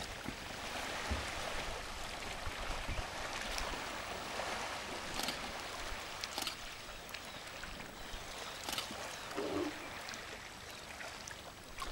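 African elephants splashing and sloshing water as they wrestle in a pond: a steady wash of moving water broken by a few sharper splashes.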